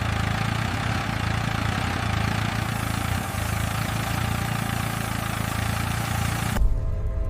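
Excavator engine running steadily at idle, with a deep, even engine note and a hiss over it. It cuts off suddenly about six and a half seconds in, and music with a deep low note takes over.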